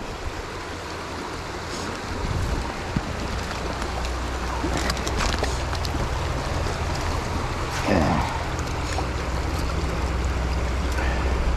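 Shallow river water rushing steadily around a wading angler, with a low rumble that builds about two seconds in and runs on.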